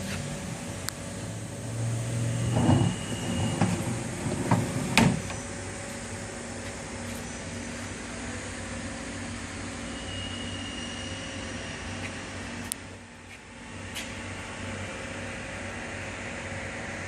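Steady mechanical hum of machinery running, with a burst of clattering and knocks between about two and five seconds in and a few sharp clicks.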